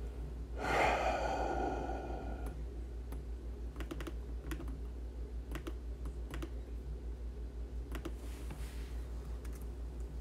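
Scattered clicks and taps of a computer keyboard and mouse over a steady low hum. About half a second in, a louder sound with a ringing tone fades away over about two seconds.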